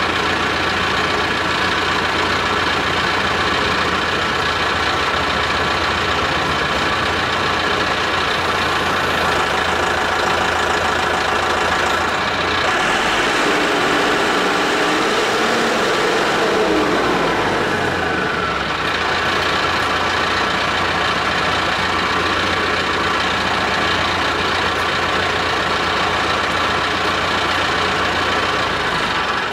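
Mahindra 8560 tractor's diesel engine running steadily while the loader hydraulics curl back against a chained-down load. About halfway through, the engine note changes for several seconds, with a tone sliding up and then back down, before settling back to the steady run.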